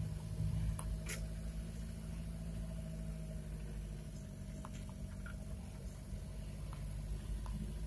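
Chevrolet LUV 4x4 double-cab pickup driving, its engine and road noise heard as a steady low hum inside the cabin, with a few small clicks.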